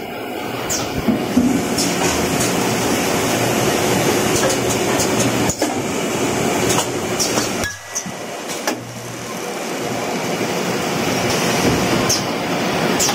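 Automatic paper straw packaging machine running at speed: a steady mechanical clatter with sharp clicks scattered through it. The noise drops briefly about eight seconds in.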